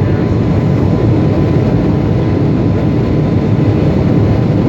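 Steady rumbling roar of a Boeing 757-200 airliner in flight, heard from inside the cabin: deep engine and airflow noise with a faint steady tone above it.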